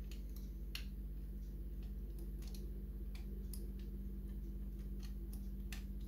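Faint, irregular clicks of a lever-lock pick working inside a five-lever mortice lock as the levers are reset and felt for again after one locked up, over a steady low hum.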